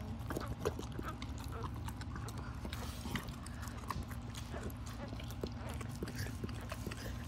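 Yellow Labrador retriever licking her newborn puppy: an irregular run of short wet licking clicks and smacks, over a steady low hum.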